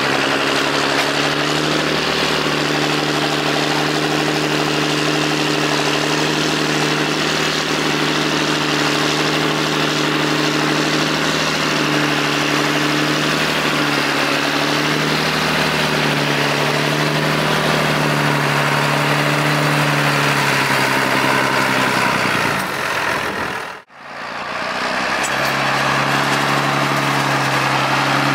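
A John Deere 8100 tractor's six-cylinder diesel engine running steadily as the tractor pushes grass silage with a front silage fork. About three-quarters of the way through, the sound briefly fades out and comes back.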